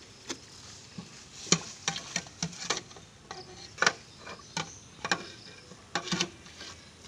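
Metal ladle clinking against the rim and insides of a bakso cart's aluminium pot as meatballs are scooped out, a string of irregular sharp clinks.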